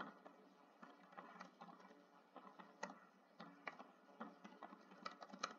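Faint typing on a keyboard: soft, irregular keystroke clicks, a few to the second.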